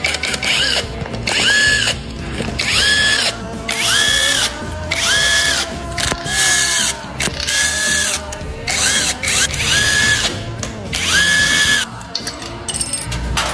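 Cordless power driver removing fasteners during an engine teardown. It runs in about ten short bursts, each spinning up to a steady whine and winding down again.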